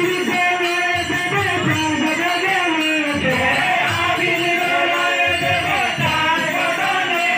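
Devotional kirtan singing with musical accompaniment, the melody gliding up and down without a break.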